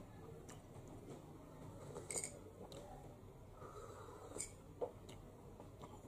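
Quiet room background with a few faint, scattered clicks and ticks.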